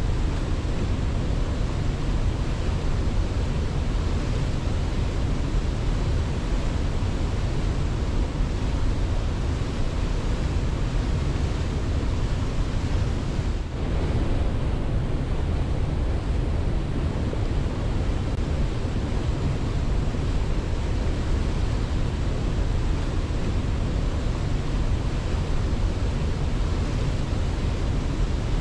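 Steady, unbroken rush of a waterfall, heaviest in the low range, with one brief dip in level about halfway through.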